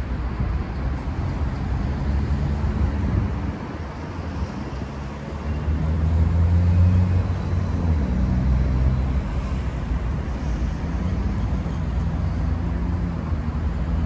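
City road traffic: a steady rumble of car engines and tyres that swells about six seconds in as a vehicle passes close, then settles back.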